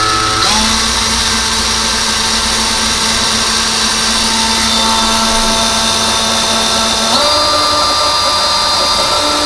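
Cordless drill with a 3/16-inch bit boring a hole in drywall for a drywall anchor. The motor gives a steady whine that steps up in pitch about half a second in and again about seven seconds in.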